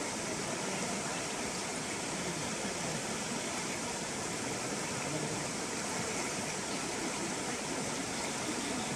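Steady rushing of a shallow river flowing over a rocky bed and small rapids.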